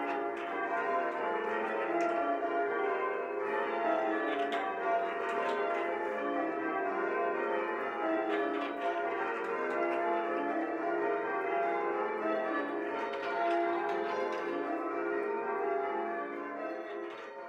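Church tower bells being rung in changes: a continuous stream of overlapping bell strikes, starting to fade out near the end.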